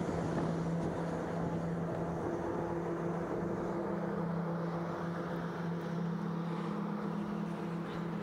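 Steady engine drone from motor traffic, a low even hum with a second, slightly higher hum joining about six seconds in, over a light rushing noise.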